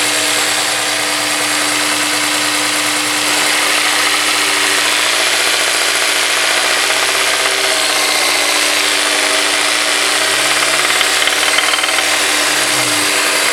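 Honda S2000's four-cylinder engine running with a knocking that the owner takes for rod knock. The revs rise about ten seconds in and drop back near the end.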